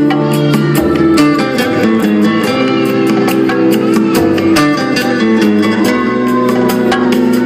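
Instrumental passage of a song with no vocals: guitar playing held chords over a bass line and a steady quick beat.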